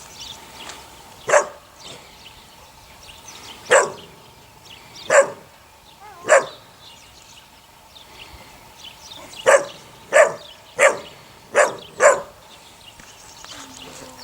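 Eight-week-old puppy barking in short, sharp single barks, about nine in all: four spaced a second or more apart, then a quicker run of five near the end.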